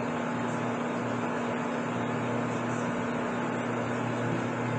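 Metal lathe running with the spindle and chuck turning: a steady hum with a constant low tone. No cut is being taken yet.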